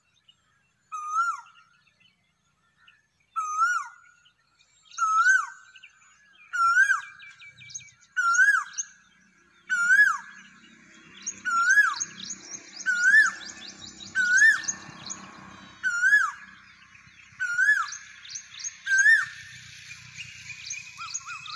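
An Asian koel calling, one loud hooked note repeated about every second and a half in a quickening series. Other small birds twitter faster and higher behind it, and there is a faint low hum midway.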